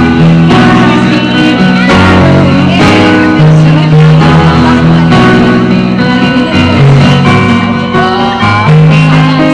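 A band playing live through amplifiers: a sung melody over keyboard and a steady bass line.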